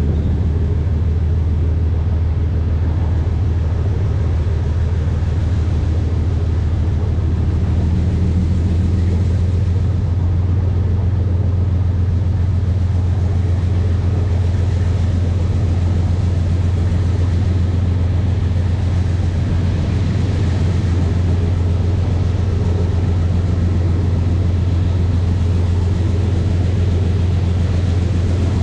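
Steady low drone of a diesel locomotive hauling a loaded coal train along the track, heard from the front of the locomotive.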